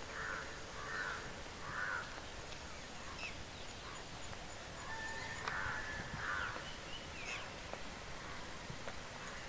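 Birds calling: a run of four harsh, evenly spaced calls in the first two seconds and two more later, with thin high chirps in between.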